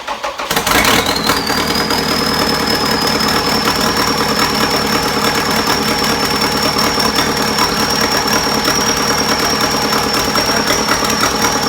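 Bobcat engine catching about a second in and running steadily with a rapid knock and a high, steady whine; it is shut off at the end, the whine falling away.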